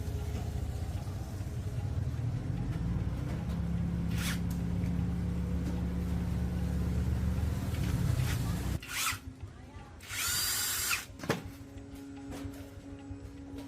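Small electric power tool running steadily for about nine seconds with a low hum, then cutting off abruptly. A short hiss of about a second follows, then a single sharp click.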